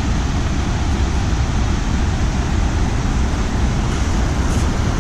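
Fast mountain stream rushing over rocks and rapids: a loud, steady wash of water noise.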